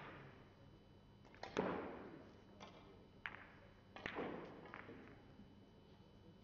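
Hard clacks and knocks of billiard balls and cues: about seven sharp strikes, each ringing briefly, the loudest about a second and a half in.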